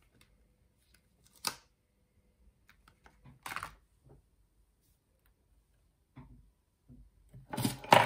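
Clear photopolymer stamps and their plastic carrier sheet being handled on a craft mat, making scattered light clicks and taps. A sharp tap comes about a second and a half in and a short plastic rustle about three and a half seconds in. A louder clatter of plastic comes near the end.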